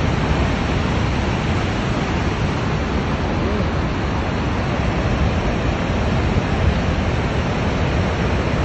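Steady rush of Niagara's Horseshoe Falls close to the brink, a dense, even noise of falling water, heaviest in the low end and unbroken throughout.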